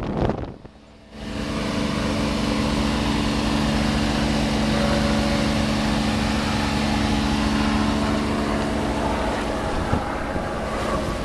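Boat engine running steadily over wind and water noise, starting about a second in after a brief drop in level.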